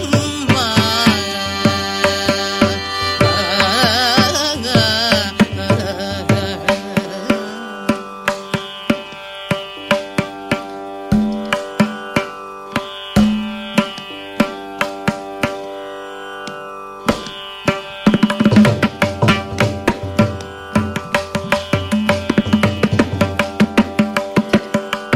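Carnatic concert music in raga Shankarabharanam: a gliding, ornamented melody line over mridangam strokes ends about five seconds in. The mridangam then carries on over a steady tanpura drone, its strokes becoming dense and fast from about eighteen seconds in.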